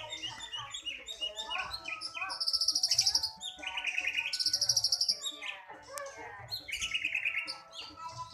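Murai songbird singing a varied song of quick whistled notes broken by loud, fast trills: the two loudest high trills come about two and a half and four and a half seconds in, with a lower trill near seven seconds.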